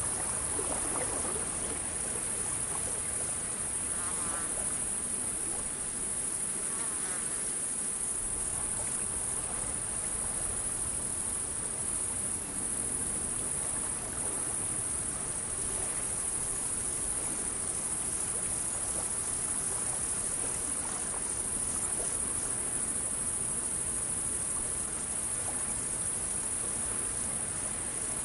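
Steady, high-pitched chorus of insects trilling without a break, like crickets on a summer evening.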